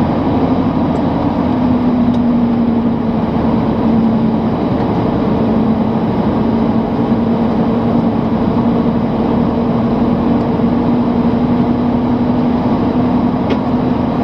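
1991 Chevrolet running, a steady mix of vehicle noise and a low hum that wavers slightly. The owner is chasing a knock that he places at the right front, near the wheel.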